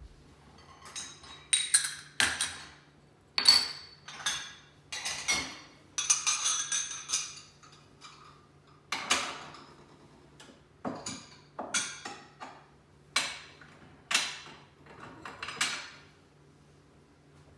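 Dishes and cutlery clinking and clattering as a dishwasher is unloaded: irregular knocks and clinks, each ringing briefly.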